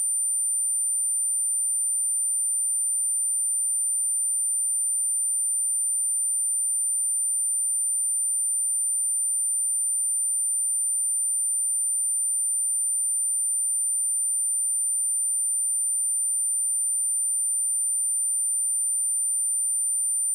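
A pure 9117 Hz sine test tone, a single steady high-pitched whistle held at constant level, of the kind played to test speakers and to shake water and dust out of them.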